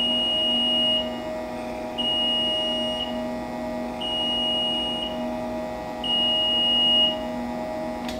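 Digital control panel of a GQF 1502 Sportsman cabinet incubator beeping: a high beep about a second long, once every two seconds, four times, over a steady hum. A single click near the end.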